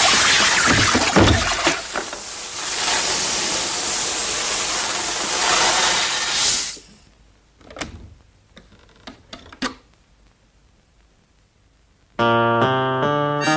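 Steady hiss of paint spraying from a loose hose nozzle, cutting off about seven seconds in. A few faint clicks follow, then plucked music starts near the end.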